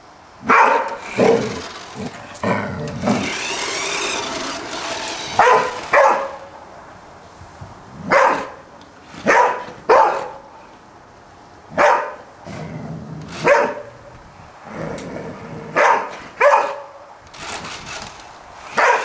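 Golden retriever barking, a dozen or so loud single and paired barks spaced one to two seconds apart, excited play barking at a remote-controlled toy car.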